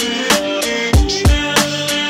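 Background music with a steady drum beat: heavy low kick-drum thumps recurring a few times a second under sustained instrumental notes.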